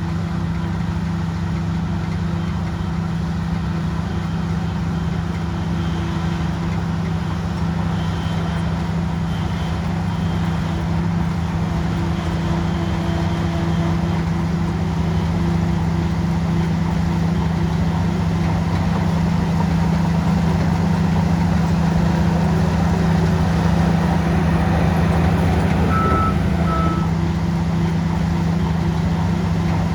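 Bulldozer's heavy diesel engine running steadily under load. A reversing alarm gives two short beeps near the end.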